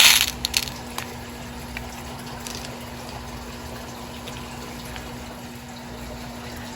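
A short, loud rustle of beads and packaging being handled at the start, a few light clicks, then a steady background hiss with a low, even hum.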